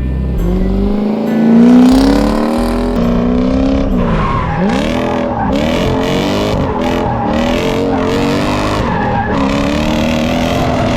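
V8-swapped Mazda Miata drifting: the V8 climbs in revs, drops sharply about four seconds in, then rises and falls again and again as the throttle is worked, with tyres squealing and skidding under it.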